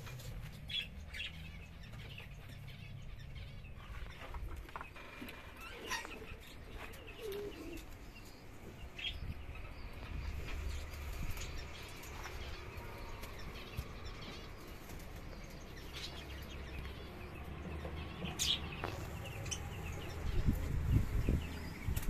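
Birds in an aviary flapping their wings, with scattered short chirps and clicks.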